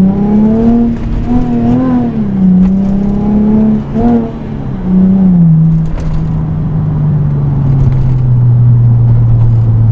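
Mercedes-Benz SLK350's V6 through its new aftermarket exhaust, driven hard in manual mode: the revs climb and drop back with several upshifts in the first six seconds, then settle into a steady drone that slowly falls.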